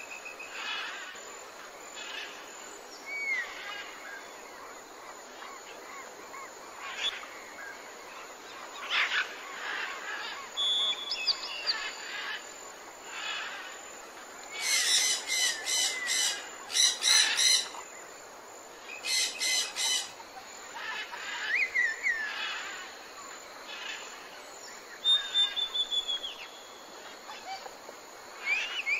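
Birds chirping and calling, short chirps and whistled notes through the whole stretch, with the loudest bursts of calls a little past the middle.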